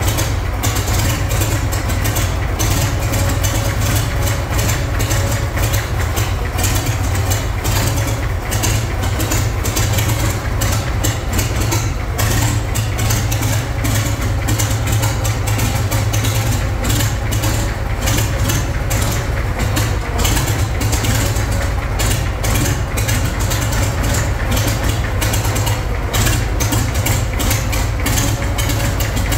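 Antique crawler tractor's engine idling steadily, running for the first time in 50 years.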